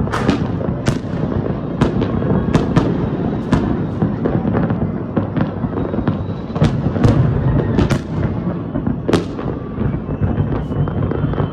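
Fireworks going off: a string of sharp bangs, irregularly spaced and about one a second, over a continuous low crackling rumble.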